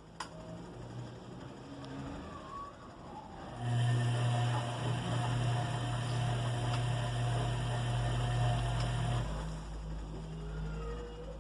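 Bosch washing machine washing a full load: the drum motor starts about three and a half seconds in, runs with a steady hum for about six seconds, and stops near the end. There is a single click just after the start.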